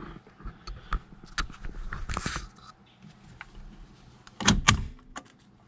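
Handling noise as a camera is set in place inside a car: scattered clicks, rustling and light knocks, with the loudest pair of knocks about four and a half seconds in.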